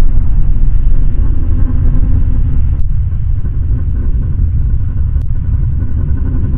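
Deep, steady low rumble played as a Tyrannosaurus rex sound effect, with two brief clicks about three and five seconds in.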